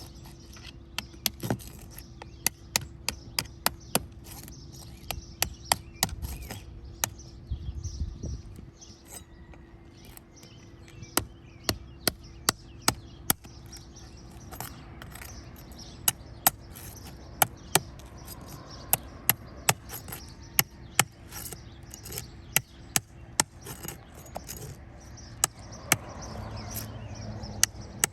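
Hand tools working on asphalt roof shingles: sharp metal taps and knocks, coming irregularly in runs of a few a second with short gaps, over a faint steady hum.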